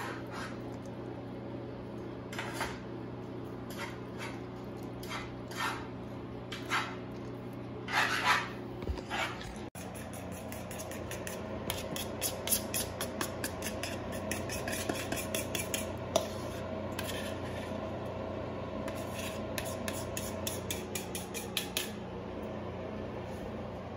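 Spaghetti being served from a frying pan into a ceramic bowl: a fork scraping and clinking against the pan and bowl, in a fast run of small clicks and scrapes from about ten seconds in. Before that there are scattered single clicks, and a steady low hum runs underneath throughout.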